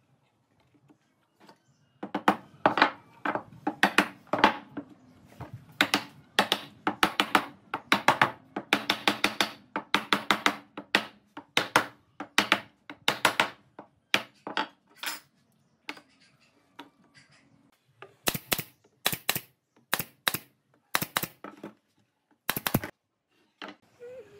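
Wooden mallet knocking a pine frame's tenon joints home: a series of sharp wooden knocks, often several in quick succession. They start about two seconds in, pause briefly past the middle and stop shortly before the end.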